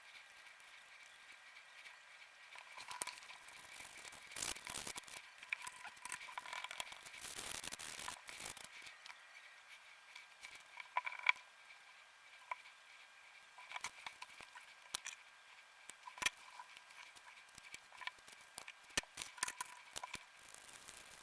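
Small sharp clicks and taps of hard plastic and small tools being handled, scattered and irregular, with a stretch of scraping or rustling about six to nine seconds in: work on the inside of a DualSense controller during a stick replacement.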